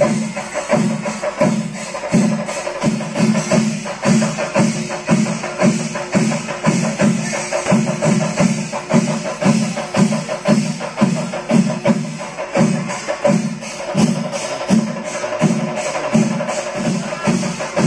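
Kerala temple percussion ensemble playing: drums beat a steady pulse about twice a second under constant clashing cymbals, with a steady held tone running underneath.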